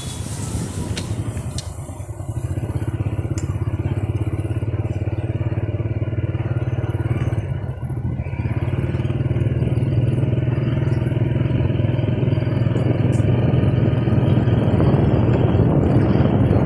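Motorbike engine running steadily under the rider at cruising speed, with a fast, even pulse. It eases off briefly about two seconds in and again about eight seconds in, then picks back up.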